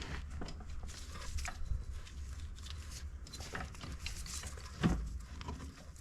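Irregular small clicks, knocks and scrapes of metal engine parts being worked by hand as the cylinder of a Yamaha TTR90E engine is worked loose from the crankcase, with a heavier thump about five seconds in.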